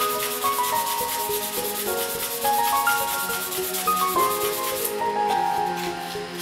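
Sandpaper rubbing a carved hinoki (Japanese cypress) wooden spoon by hand in quick back-and-forth strokes, stopping about five seconds in. A gentle melodic background tune plays throughout.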